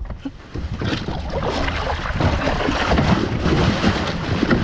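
A large oilfish thrashing at the surface beside the boat, splashing and throwing up spray. The splashing starts about half a second in and goes on as a dense, irregular churn of water.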